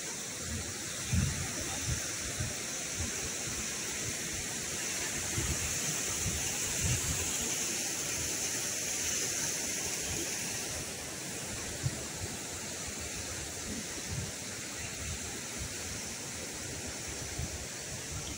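Steady rushing hiss of a mountain stream running under snow, a little louder in the middle, with irregular low thuds.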